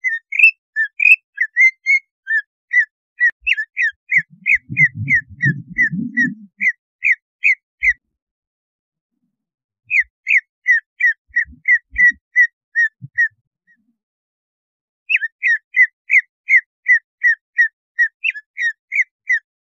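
Cucak ijo leafbird calling: rapid runs of short, sharp whistled notes, about three a second, in three bouts with short pauses between them.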